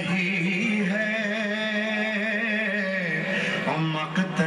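A man singing a noha, a Shia elegy, in long held notes that waver in pitch, stepping lower about three seconds in. Two short, sharp knocks come near the end.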